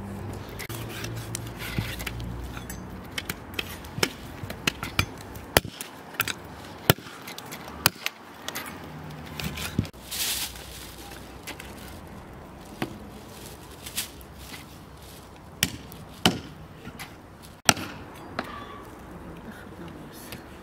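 Large knife chopping roasted turkey on a wooden chopping block cut from a log: sharp, irregular knocks, packed closest in the first half.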